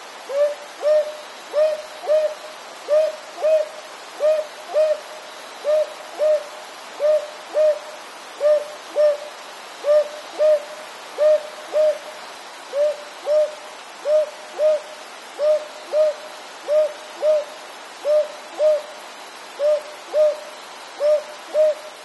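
Northern boobook calling its two-note hoot, 'hoo-hoo', repeated over and over at about one pair a second, each note short with a slight drop at its end.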